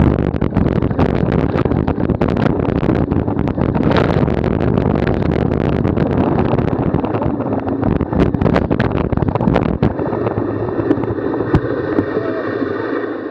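Wind rushing over the microphone of a bike riding fast off-road, with many sharp knocks and rattles from the bike jolting over rough ground. The low rumble eases after about ten seconds.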